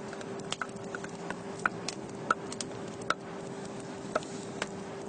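Wood bonfire crackling, with irregular sharp pops at uneven intervals, a few louder than the rest, over a faint steady hum.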